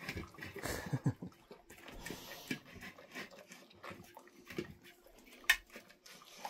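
Dogs licking dishes clean: repeated wet tongue laps and small scrapes of the dishes, with one sharp knock about five and a half seconds in.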